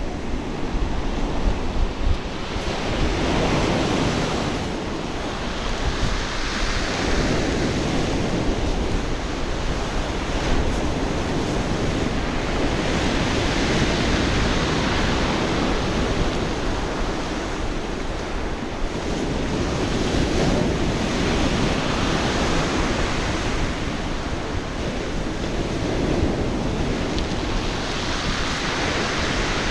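Sea surf breaking and washing up a pebbly beach, swelling and easing every several seconds, with wind buffeting the microphone.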